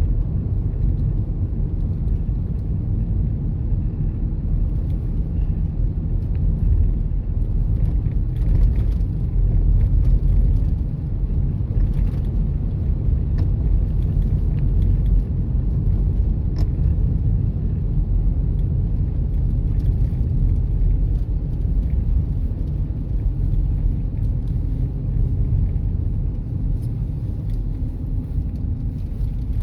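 Car driving at steady speed: a continuous low rumble of road and engine noise.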